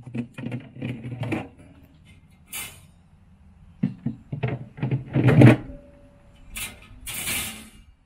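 Wire wine-cooler shelf racks being slid back into the cabinet's rails: a run of metal clinks, rattles and knocks, with a louder clatter about five seconds in.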